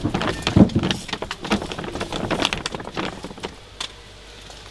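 Hands working a pipe fitting and liner: irregular rustling with clicks and knocks of plastic parts, dying down about three and a half seconds in.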